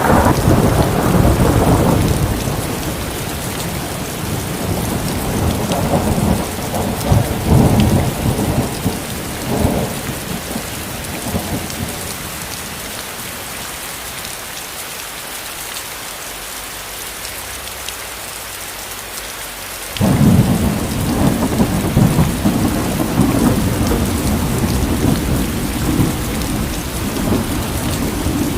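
Steady rain with rolling thunder. One long rumble sets in at the start and fades after about ten seconds, and a second breaks in suddenly about twenty seconds in.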